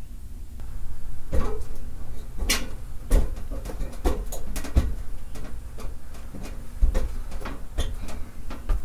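A run of irregular knocks, clicks and clatter, like objects being handled and bumped about, over a steady low hum.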